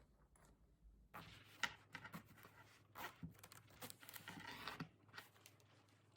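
Faint handling noise: a string of short, irregular rustling and scraping sounds, with one sharper tick about one and a half seconds in.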